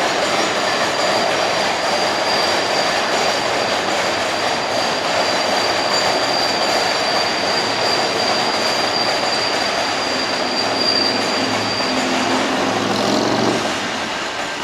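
New York City subway train running past, a loud rush of wheels on rails with a thin, steady high-pitched wheel squeal that stops about twelve seconds in. A lower hum comes in near the end as the noise eases off.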